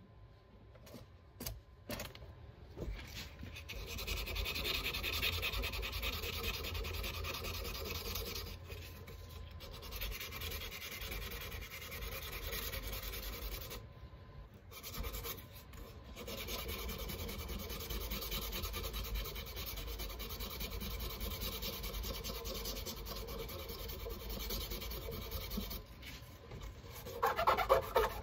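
Steady rubbing against a deer antler pen blank spinning on a lathe, with a few short breaks, during the pen's turning and finishing stage.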